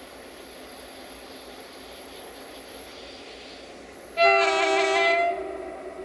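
Horn of an approaching CFR 040-EA1 (LE 5100 kW) electric locomotive: one loud blast of a little over a second, starting sharply about four seconds in, several tones at once, then fading with an echo. Before it only a faint steady hiss.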